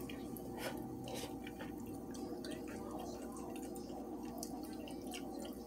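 Close-up wet eating sounds: seafood boil being chewed with smacking lips and sticky fingers, in many small irregular squishy clicks over a steady background hum.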